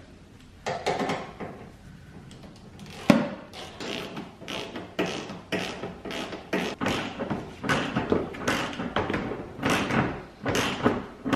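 Socket wrench driving a 10 mm bolt into a headlight assembly: irregular metallic clicks and knocks, a few a second, with a louder knock about three seconds in.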